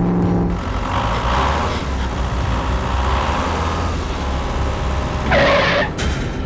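A heavy truck's engine running with a steady low rumble, with a short burst of hiss about five seconds in.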